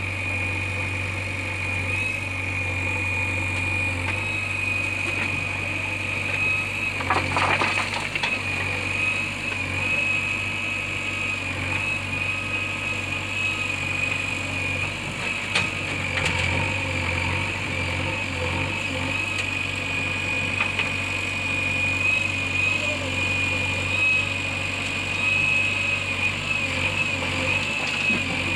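Diesel engine of a tractor or backhoe loader idling steadily, with a constant high-pitched whine over the low engine hum and a couple of brief rattles along the way.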